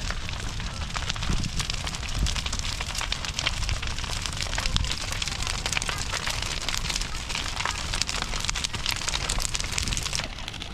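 Large bonfire burning, a steady rushing noise full of rapid sharp crackles and pops.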